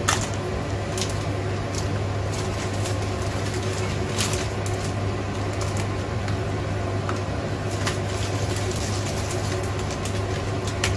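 Pot of water at a rolling boil under a steady low hum, with scattered light crackles as dry yuba sheets are broken and dropped into it.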